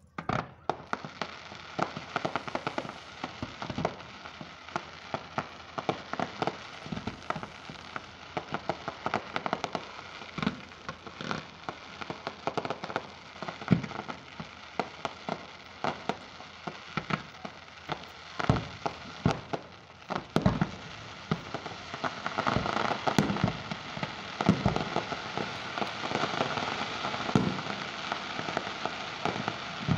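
Fireworks display going off: sharp bangs in quick, irregular succession over a dense crackle of bursting shells, the crackling growing thicker and louder in the last third.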